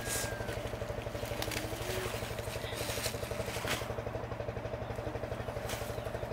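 A small engine chugging steadily with an even, fast pulse, its pitch unchanging, under occasional rustles and snaps of leafy plants being handled.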